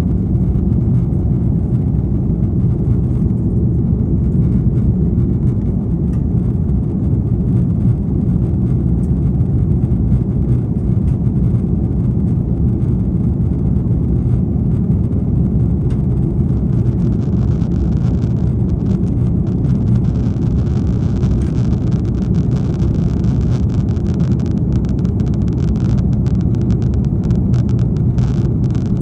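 Steady low roar inside the cabin of an Airbus A330 in flight: its engines and the rush of air past the fuselage, heard from a window seat.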